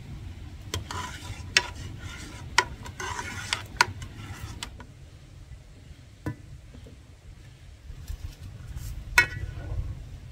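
A metal spoon stirring and scraping in a cooking pot, with about six sharp clinks against its side spread through the stretch. A low steady rumble runs underneath.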